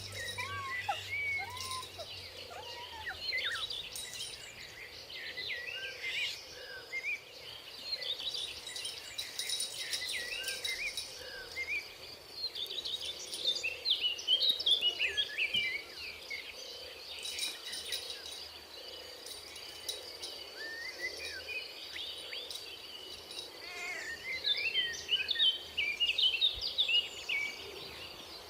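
Many small birds chirping and twittering in quick overlapping calls, busiest in a few bursts, over a thin steady high tone.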